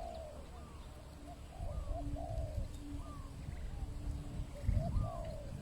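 Spotted dove (tekukur) cooing: a repeated phrase of short coo notes that rise and fall, with a low rumble underneath.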